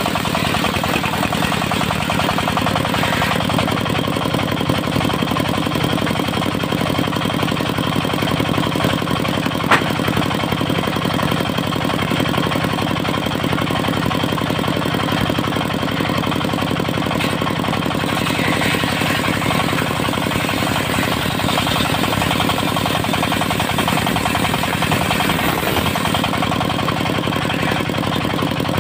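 Diesel engine of a portable circular sawmill running steadily, with one sharp click about ten seconds in.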